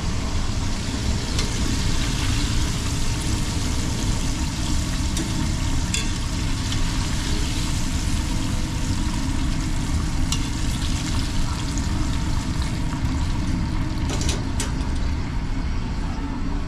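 Cornmeal cou cou being stirred in a pot on the stove: a steady frying-like hiss with a few sharp knocks of the spoon against the pot, over a loud, steady low hum of kitchen ventilation.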